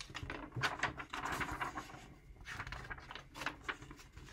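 Paper rustling and scraping as the pages of a picture book are turned and handled, in two spells of a second or so each.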